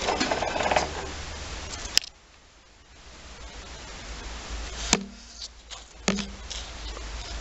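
Handling noise as steel mower blades are picked up and moved: rustling, with a sharp click about two seconds in and two knocks with a short low ring around five and six seconds in.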